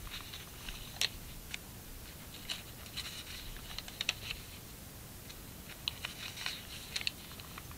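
Thin watercolour-painted pages of a Hobonichi Techo planner rustling and crinkling as they are turned by hand one after another, in short scattered crackles.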